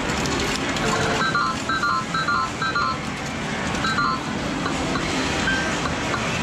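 Sigma Red Dog Poker medal machine giving short electronic bleeps: a quick run of stepped two- and three-note beeps as a medal is fed in, then one more short group as the deal button is pressed and the cards come up, over a steady arcade din.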